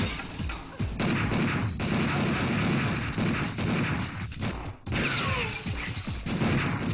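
Film action-scene sound effects: crashing and shattering glass and pistol gunfire over background music. Sudden loud hits come about a second in and again near five seconds.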